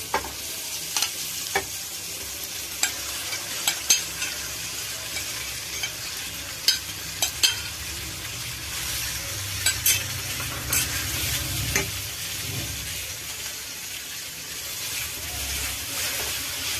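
Marinated chicken pieces sizzling as they go into hot oil and fried onions in a frying pan, a steady hiss. Over it come irregular sharp clicks and knocks of a metal spoon and a spatula against the pan and the glass dish as the chicken is scraped in and stirred.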